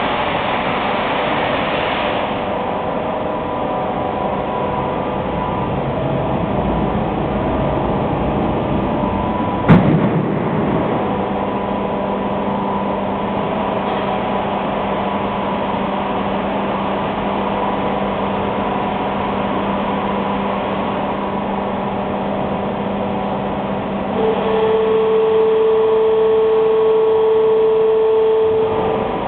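AAC block cutting machine running: a steady machinery hum with one sharp loud knock about ten seconds in, and a louder steady motor tone that joins for the last five seconds.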